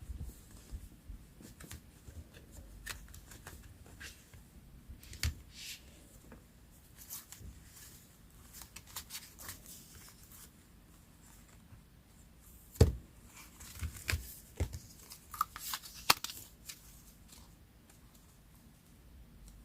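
Paper being handled for a hand-made collage: scattered rustles, tears or snips and light taps on the desk. There is a sharper knock about two-thirds of the way in, followed by a quick run of taps.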